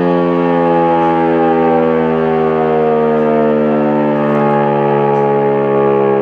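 E57 electro-mechanical civil-defence siren wailing loudly, its pitch slowly rising and falling. This is the German 'Warnung der Bevölkerung' signal, an undulating one-minute tone that warns the public.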